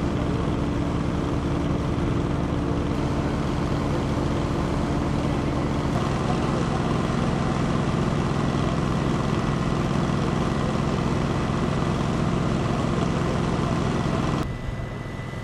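An engine running steadily, heavy machinery or a vehicle at the work site. It changes note about six seconds in and quietens near the end.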